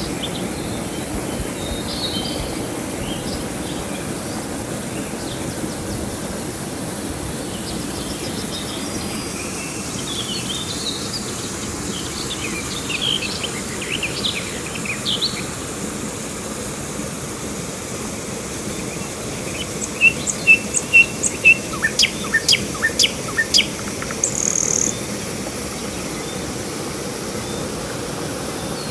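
Steady rush of flowing river water with birds chirping over it. About two-thirds of the way in comes a quick series of loud, sharp bird calls lasting a few seconds.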